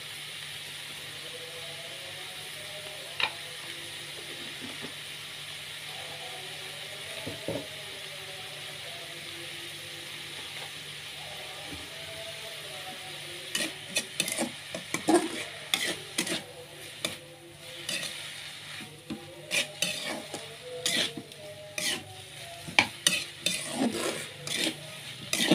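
Papaya leaves and anchovies sizzling steadily in a hot pan. From about halfway through, a spatula repeatedly scrapes and knocks against the pan as the stir-fry is stirred.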